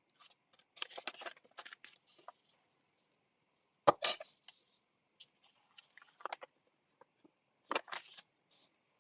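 Paper and card being handled on a work surface: scattered short rustles and scrapes, with one sharp tap or knock about four seconds in and two more near the end.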